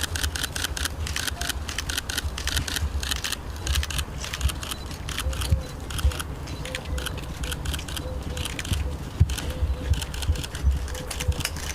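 Metronome ticking, with more sharp clicks between the ticks, several a second in all, over a low rumble.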